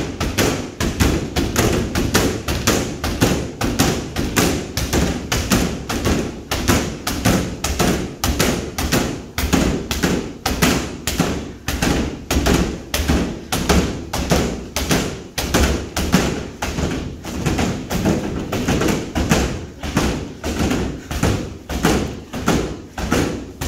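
Rapid, steady kicks thudding into a free-standing punching bag, about two to three a second without a break: continuous speed-kicking against the bag.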